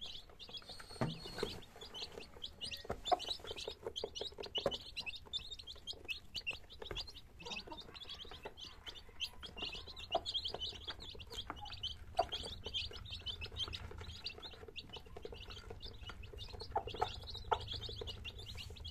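A brood of three-day-old chicks peeping continuously in quick, high chirps while feeding, with scattered light taps of beaks pecking at a plastic feeder.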